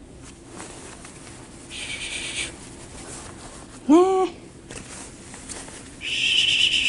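A long-haired cat gives one short meow about four seconds in, rising then falling in pitch; it is the loudest sound here. Around it the quilted blanket rustles in two short spells as the cat wrestles on it.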